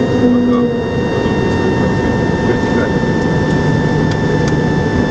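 Steady cockpit noise of the Antonov An-225 Mriya in flight: a dense low rumble of its six turbofan engines and the airflow, with several thin steady whining tones above it.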